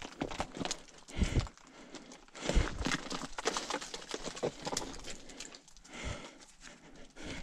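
Uneven footsteps crunching and scraping on rock and loose ground as someone scrambles over a bluff, with a few heavier steps or knocks among them.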